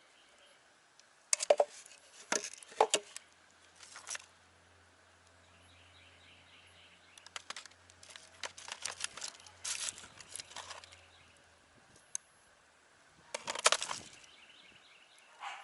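Intermittent clicks and rattles of small hard objects being handled and set down, in several short clusters.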